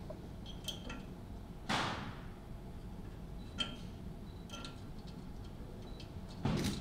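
Small metal hardware handled by hand: light clicks and taps as screws and a brass leveling-screw base plate are picked up and set on a pool-table leg, with a brief rustle about two seconds in and another at the end.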